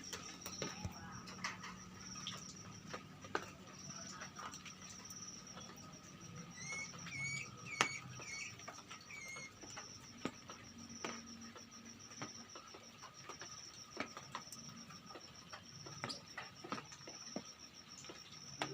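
Caged birds: a quick run of short chirps about a third of the way in and scattered light taps and flutters, over a steady, high, pulsing insect-like trill.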